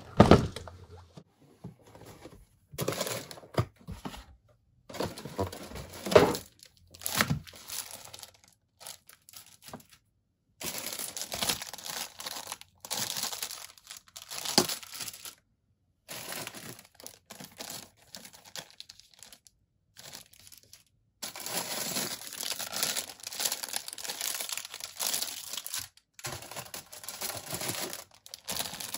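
Clear plastic bags around model-kit sprues crinkling and rustling as they are lifted out and handled, in long stretches broken by short pauses. Before that, in the first several seconds, a few knocks and thumps from the cardboard kit box being handled.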